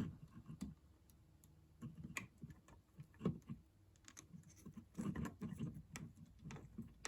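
Faint, irregular clicks and taps of wires and a plastic smart switch being handled as the line wire is fitted to the switch's terminal, with a small cluster of clicks about five seconds in.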